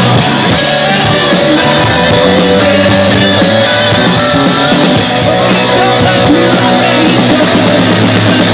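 Live rock band playing loud, with distorted electric guitars, bass guitar and a drum kit keeping a steady beat.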